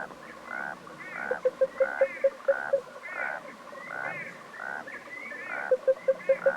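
Sound-designed alien-planet wildlife ambience of creature calls like frogs and insects: short warbling chirps repeat throughout. Two runs of quick, even pulsing calls, about six a second, come in about a second in and again near the end.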